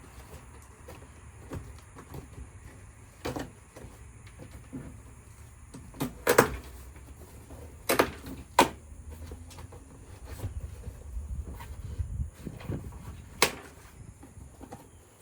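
Cardboard shipping box being pushed open and handled: scuffing and rustling with about five sharp knocks and thumps, the loudest two near the middle.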